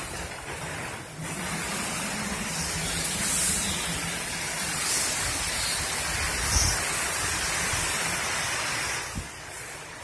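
Strong gusting wind with heavy rain: a steady rushing hiss that swells about a second in and drops back near the end.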